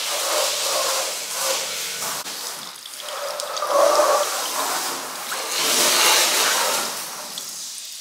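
Water running and splashing as a stainless steel bulk milk tank is rinsed out, pouring out through the tank's outlet valve, with surges about halfway through.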